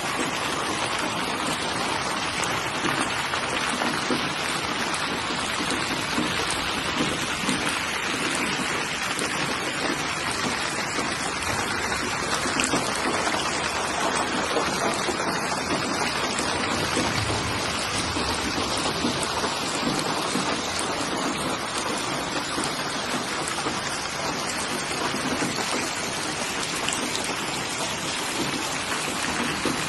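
Steady rain falling, a dense even patter of raindrops with no letup.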